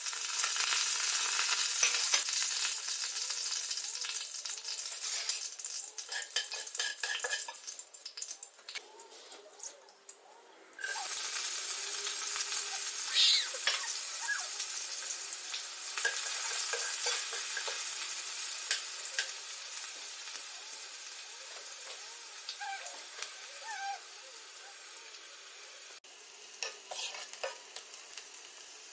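Hot oil in a frying pan sizzling loudly as leaves and spices are dropped in, the hiss fading over the next several seconds. About eleven seconds in a fresh burst of sizzling starts as chopped onions go in, then frying steadily with clicks of a spoon stirring in the pan.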